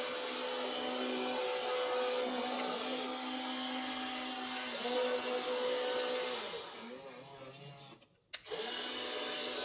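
Small electric motors of a WLtoys RC excavator whining steadily, fading away about seven seconds in, cutting out briefly, then starting up again.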